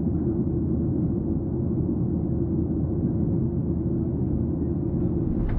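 Steady low rumble of an airliner cabin, even and unchanging.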